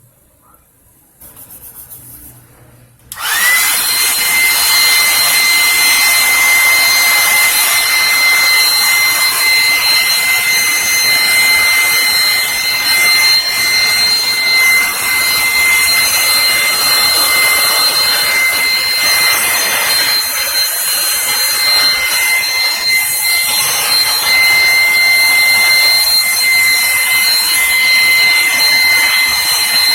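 A small high-speed electric motor driving a fan for dust cleaning of an electronic mixing console starts suddenly about three seconds in and runs steadily: rushing air with a high, steady whine.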